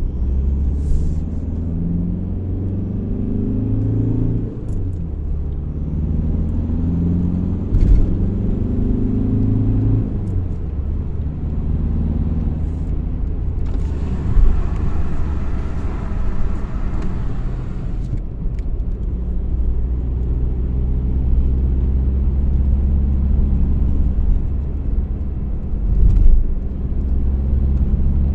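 VW Golf 4's 1.9 TDI four-cylinder turbodiesel under way. Its pitch rises twice in the first ten seconds, dropping back about four and a half seconds in and again at ten, then it runs steadily. A hiss rises and falls from about fourteen to eighteen seconds in, with a few short knocks along the way.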